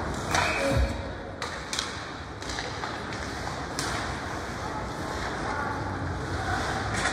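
Ice hockey game heard in an indoor rink: steady crowd and rink noise broken by a few sharp knocks and a dull thud about a second in.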